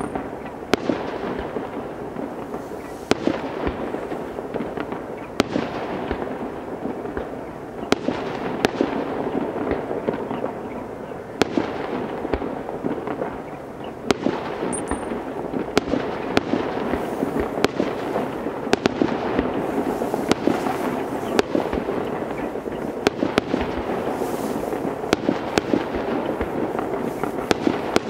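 Aerial fireworks display: shells bursting with sharp bangs every second or so, over a continuous dense crackle.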